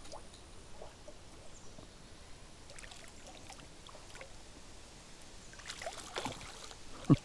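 A hooked bass splashing and thrashing at the water's surface on light fishing line. The sound is faint and grows busier near the end, closing on a sharp thump.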